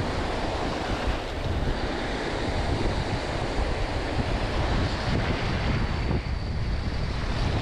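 Small waves breaking and washing over a shallow shore, with wind buffeting the microphone in a steady low rumble.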